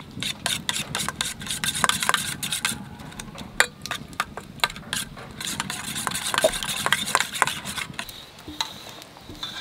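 Metal spoon beating raw eggs with chopped herbs in a stainless steel bowl: continuous scraping and swishing with frequent, irregular clinks of the spoon against the bowl.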